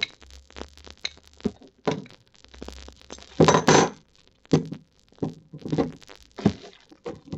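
Kohler Niedecken shower cartridge parts handled and fitted together by hand. Irregular light clicks, knocks and clinks of metal parts, with the loudest cluster about halfway through.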